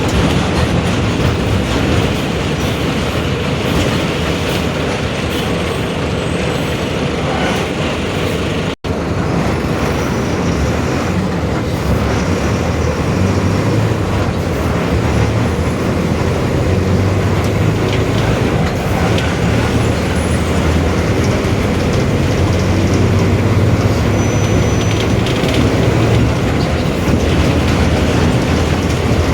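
Mercedes-Benz OF-1721 BlueTec 5 city bus under way: the diesel engine and drivetrain run with a steady low drone and rattling, together with the growl of its differential. The sound cuts out for an instant about nine seconds in.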